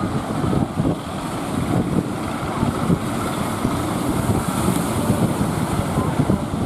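Wind buffeting the microphone in uneven gusts over the steady rush of heavy surf.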